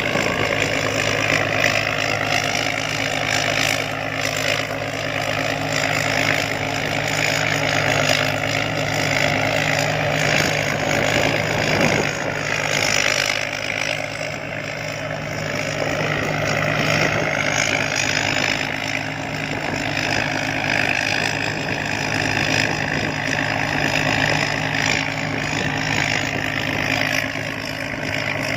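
Rice combine harvester's engine running steadily at idle, a constant low hum.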